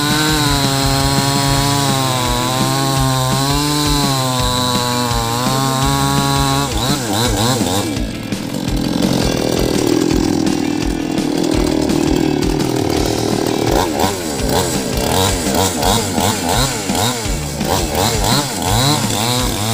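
Two-stroke chainsaw running at high speed, its pitch wavering. From about seven seconds in it is revved up and down rapidly, with a rougher, steadier stretch in the middle.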